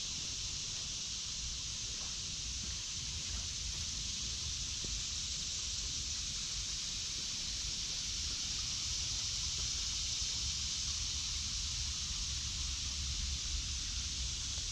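Steady, unbroken high-pitched drone of a cicada chorus in woodland, with a low wind rumble on the microphone.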